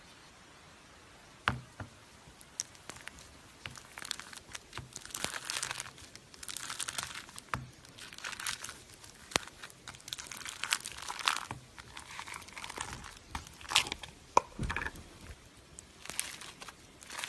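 Slime being worked by hand, giving irregular crackling and crinkling with sharp little pops and clicks, starting about a second and a half in.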